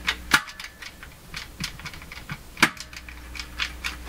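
Irregular crackles and clicks, with two louder pops, from a Fisher System 8700 receiver's phono pushbutton selector switch as it is worked. The dirty switch contacts make noise through the speakers, over a steady low hum from the high phono gain.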